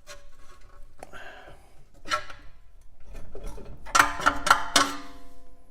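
Screwdriver prying at a car's front brake rotor: scattered metal clicks and scrapes, then three sharp strikes about four seconds in that leave the rotor ringing with several clear tones.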